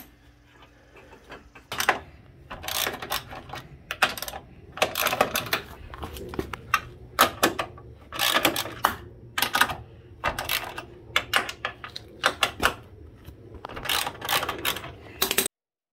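Hand ratchet and socket clicking in repeated short bursts, each a quick run of clicks, as bolts at the front of a BMW E46 engine are loosened.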